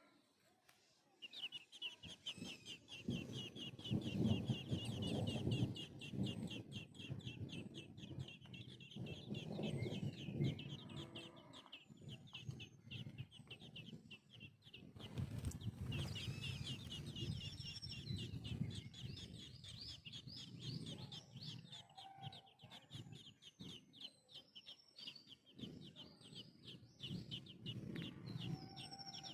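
Young birds peeping rapidly and steadily at a high pitch while being fed by the mother bird, starting about a second in. Lower, louder sounds come and go underneath in bouts.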